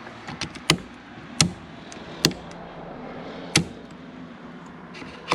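A series of sharp clicks, about five loud ones irregularly spaced with a few lighter ticks between, over a faint steady hum, from hands working on the turn signal switch mechanism in a car's steering column.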